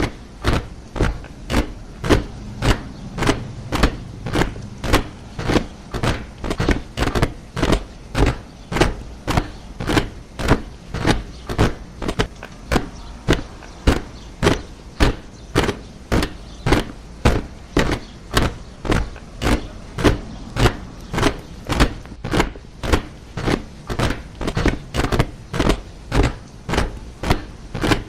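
Soldiers marching in step, their boots striking the ground in a steady rhythm of about two footfalls a second.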